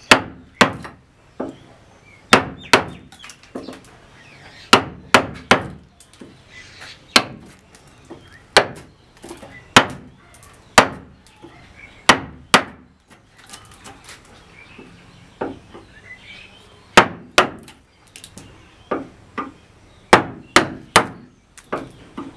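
Hammer striking a wooden-handled wood chisel, chopping a recess into the edge of a wooden door frame. Sharp knocks come at an uneven pace, often in twos or threes, with a pause of about two seconds in the middle.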